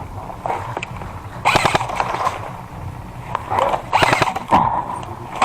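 Airsoft electric rifles firing in rapid bursts of clicking shots, one burst about a second and a half in and another around four seconds in.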